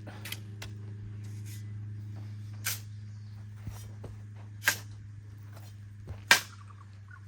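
A hand tool scraping and digging into a crushed-stone base, four or five sharp strokes a second or two apart, the one near the end the loudest, over a steady low hum.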